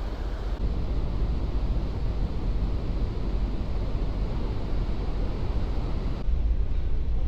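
Steady low rumble of a large car ferry's engines and propellers churning the water as it manoeuvres at its berth. The low rumble grows louder about six seconds in.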